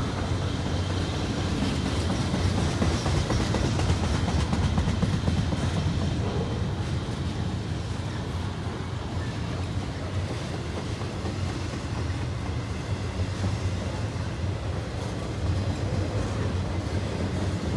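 Freight train cars rolling past: a steady rumble of steel wheels on the rails with a faint clickety-clack.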